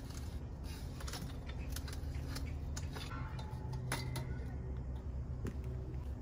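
Scattered faint clicks and taps from a steel drill-press stand being let go of and from footsteps on concrete, over a steady low hum.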